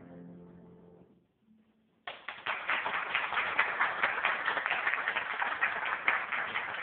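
The last chord of a grand piano fading away, then after a short hush an audience starts applauding suddenly about two seconds in, many hands clapping steadily.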